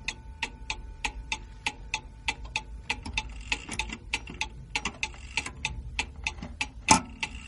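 Mechanical wall clock ticking evenly, about three ticks a second, with one louder clunk near the end.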